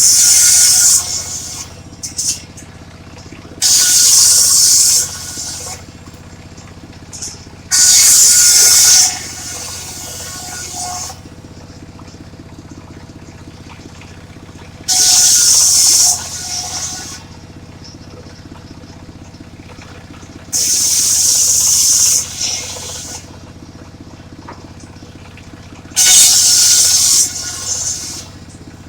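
Mobile circular saw running steadily, its blade biting into a large suren log in six loud, hissing cutting bursts of a second or two each, about every five seconds.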